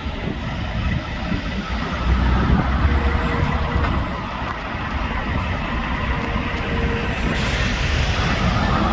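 Heavy tow truck's diesel engine running as it pulls up, a low rumble that grows louder about two seconds in. A steady hiss joins it about seven seconds in.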